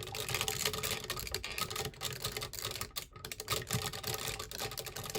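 Hard plastic parts of a Geki Toja combining-robot toy clicking and rattling irregularly as its arms are moved and fitted to grip the Geki Bat wing piece.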